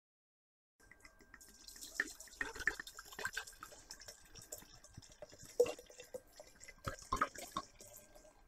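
Moonshine poured from a bottle into a glass jar, splashing irregularly into the glass as the jar fills, starting about a second in.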